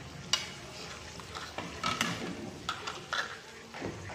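Wok of blue swimmer crab in pineapple sauce simmering steadily, with several sharp clicks as chopsticks knock against the pan while chillies are pushed in and stirred.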